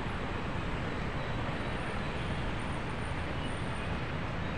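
Steady road-traffic rumble from the surrounding flyovers and roads: an even, unbroken noise with no distinct events standing out.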